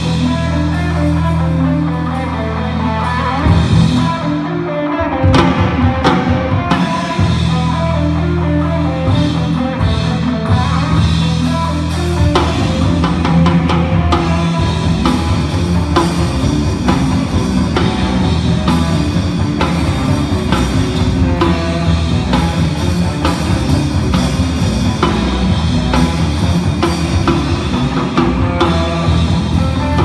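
Live rock band playing amplified, with distorted electric guitars, bass guitar and a drum kit. About four seconds in the low end drops out briefly, then the full band comes back in.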